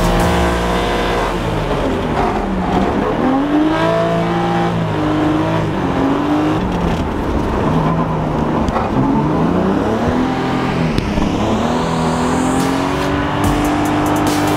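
Toyota Supra's turbocharged 2JZ-GE straight-six, heard from inside the car as it drifts on ice, its revs rising and falling again several times as the throttle is worked through the slides. A high whistle rises for about a second and a half near the end.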